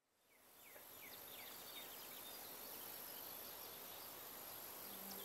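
Faint outdoor nature ambience fading in over the first second: a steady high insect trill with scattered short bird chirps over a soft hiss.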